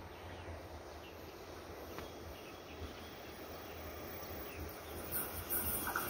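Faint outdoor ambience with a low hum and a few faint chirps. From about five seconds in, the hiss and rumble of an approaching electric-hauled Tze-Chiang express train rises steadily as it nears along the rails.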